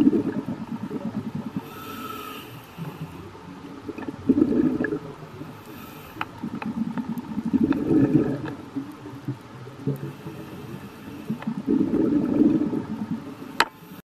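Underwater recording of a scuba diver's regulator breathing: bubbling rumbles from the exhaled bubbles about every four seconds, with a fainter inhale hiss between some of them. A sharp click comes near the end.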